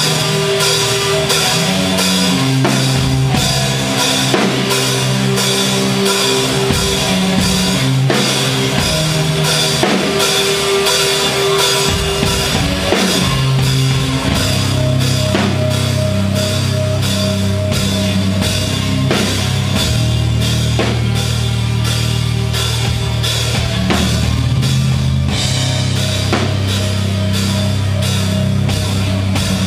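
A live rock band playing loud, with a drum kit keeping a steady beat under held amplified guitar and bass notes. The low end grows heavier about twelve seconds in.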